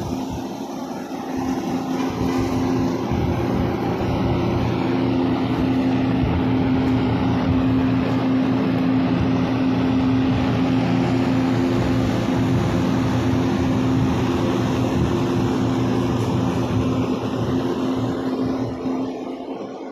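Steady motor drone with a low, even hum, building over the first couple of seconds and easing off near the end, over street noise.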